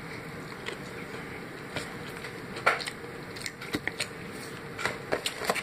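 Close-up eating sounds of someone chewing and gnawing a fried chicken drumstick: scattered wet smacks and small crisp clicks, more of them in the second half, over a steady background hiss.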